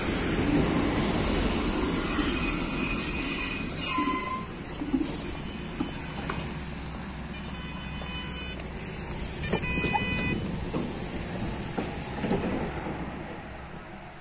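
Czech Railways class 814 Regionova diesel railcar's brakes squealing with a high, steady squeal as it draws to a stop alongside the platform; the squeal stops about four seconds in. Quieter train rumble follows, with a few clicks and short beeping tones.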